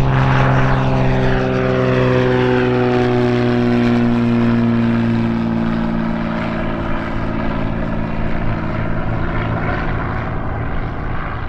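Cessna T182T Turbo Skylane's turbocharged Lycoming six-cylinder engine and propeller droning in a low flyby. The pitch drops over the first few seconds as the plane passes, then the sound slowly fades as it moves away.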